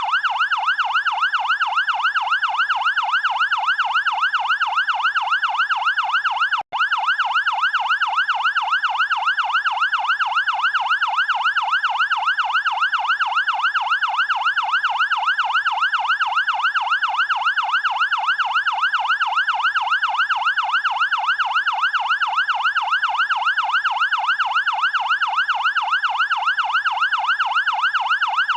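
Fire engine siren in a fast yelp, its pitch sweeping rapidly and evenly up and down without a pause, with a momentary break about seven seconds in.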